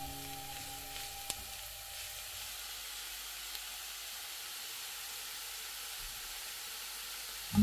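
Grated carrot, onion and chopped mushrooms sizzling in oil in a nonstick frying pan, with a steady even hiss. A single sharp tap about a second in, as background music fades out.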